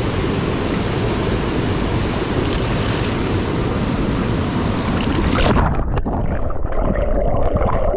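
Loud, steady rush of fast-flowing creek water. About five and a half seconds in it turns duller as the hiss in the top end drops away.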